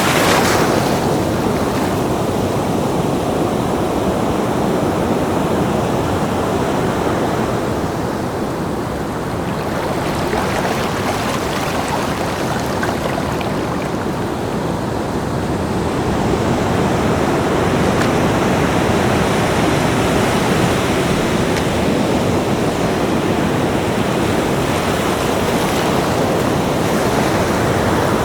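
Ocean surf on a beach: waves breaking and washing in as one continuous rush of water noise. It eases off about a third of the way in and builds again a little past the middle.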